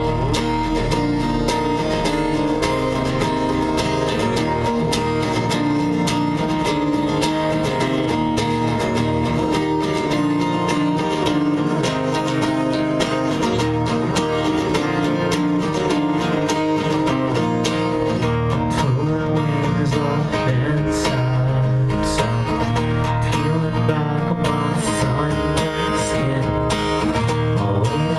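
Live acoustic guitar strummed steadily, playing a song's instrumental opening.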